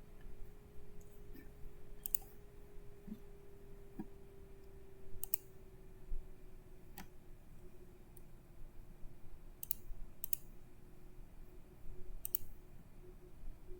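Computer mouse clicks, about six single clicks spaced a second or more apart, over a faint steady hum.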